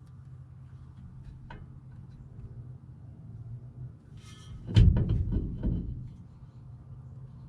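A short rattle followed by a quick run of about five heavy clunks over a little more than a second, over a low steady hum.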